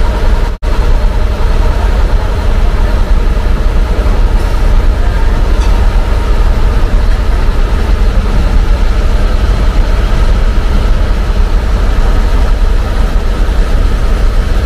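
Riverboat's engine running steadily, a loud, even low rumble with no change in speed.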